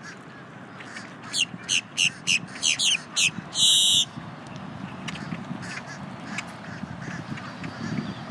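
Grackle calling: a quick run of about seven short, rising chips over two seconds, then a loud, harsh, squeaky squeal lasting about half a second.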